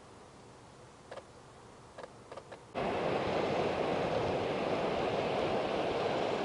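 A few faint ticks, then, after an abrupt cut, a steady loud rushing noise of outdoor coastal ambience.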